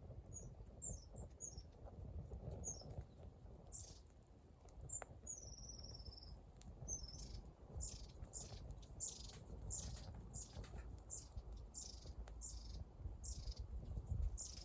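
A small songbird calling: short high-pitched notes sweeping downward, a few scattered at first and a longer falling note about five seconds in, then repeated about twice a second, over a low rumble.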